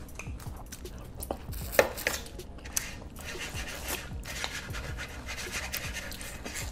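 Close-miked eating: corn on the cob in sauce being bitten and chewed, a run of wet crackles and clicks with a couple of sharper crunches about two and three seconds in.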